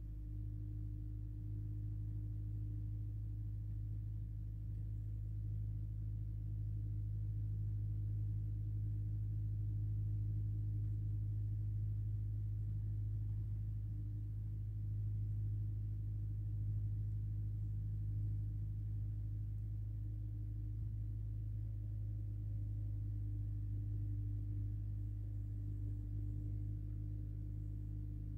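A steady low hum with a few fainter steady tones above it, swelling slightly in the middle and then easing back.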